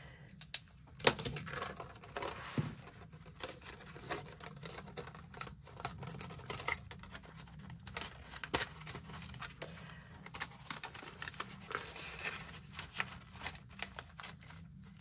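Hands handling paper and small objects on a table: soft paper rustling with irregular light clicks and taps, the sharpest about a second in and near the middle.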